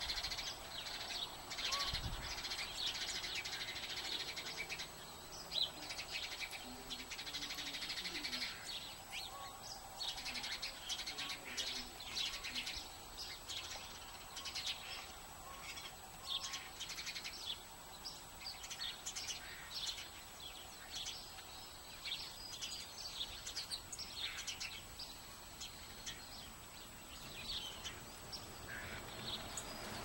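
Small songbirds chirping and twittering: many quick, high chirps overlapping, busiest in the first half and thinning out toward the end.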